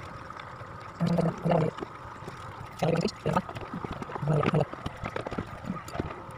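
Light plastic clicks and rattles from handling an electric fan's base as the cover plate is pressed down over its piano-key speed-switch buttons. A few short, low vocal sounds stand out above the clicks, the loudest events, about five of them between one and five seconds in.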